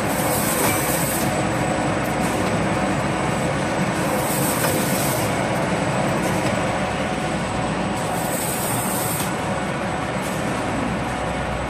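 SGL-104 CNC automatic bottle screen printing machine running, a steady mechanical noise with a high hiss about a second long repeating roughly every four seconds.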